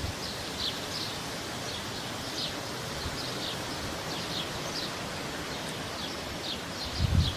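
Small birds chirping: short, high, falling chirps repeated a couple of times a second over a steady outdoor hiss. A gust of wind buffets the microphone near the end.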